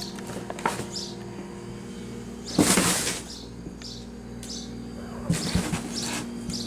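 A kitten scrambling and scratching on cardboard, with a loud scrape about two and a half seconds in and smaller ones near the start and end. Short high chirping sounds come at intervals over a steady low hum.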